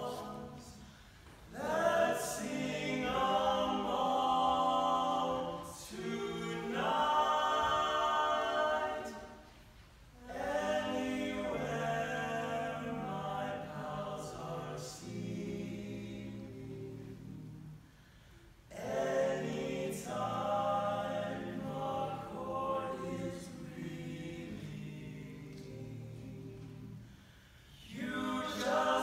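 Barbershop quartet of four male voices singing a cappella in close four-part harmony. The singing comes in long held phrases with brief breaks between them.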